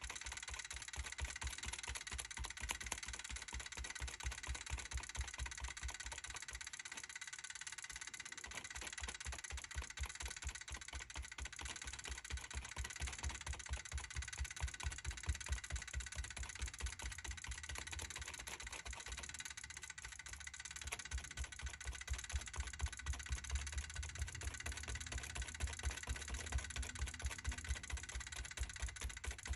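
Stencil brush dabbing paint through a stencil onto a paper journal page: a quick, even run of soft low taps, about four a second, over a steady hiss, with a short let-up about seven seconds in.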